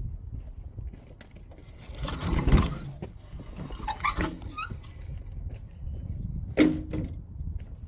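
A car driving over a plastic alarm clock: a burst of crunching and high squeaks about two seconds in, scattered clicks after it, and another short crunch near the end.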